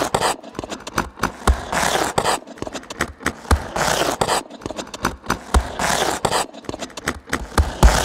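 Ice skate blades carving and scraping across the ice in repeated long swishes, with many sharp clicks and taps as the blades strike the ice.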